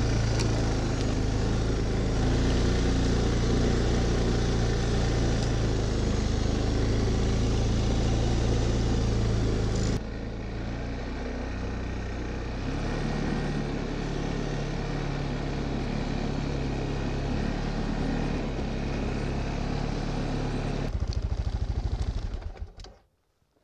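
Arctic Cat ATV engine running as the quad pushes through deep snow, close and loud for the first ten seconds, then quieter and more distant. Near the end it pulses evenly at idle, then winds down and stops.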